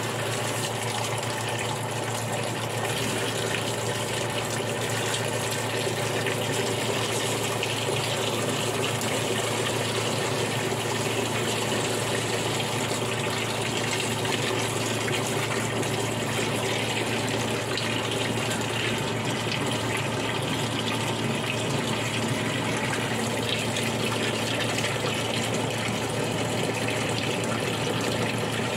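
A stream of water pouring into the plastic wash tub of a Praxis 10 kg twin-tub washing machine, filling it for the rinse: a steady rushing splash over a low steady hum.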